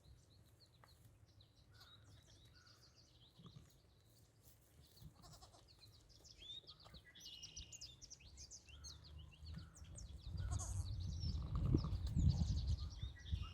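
Icelandic ewe calling softly to her newborn lambs, with faint bleats, while small birds chirp throughout. The low sounds grow louder in the last few seconds.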